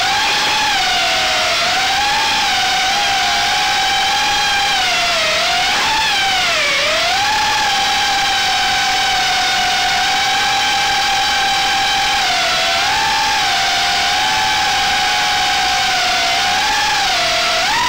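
Brushless motors and propellers of an Armattan Gecko 3-inch FPV quadcopter whining in flight, heard up close from its onboard camera. The high whine mostly holds steady and dips and swoops in pitch several times as the throttle changes, most deeply about two-thirds of the way in.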